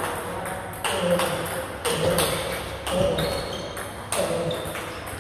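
Table tennis forehand rally: a celluloid-type ball is struck by a Butterfly Fan Zhendong ALC blade with Dignics 09C rubber and bounces on the table, giving sharp knocks about once a second.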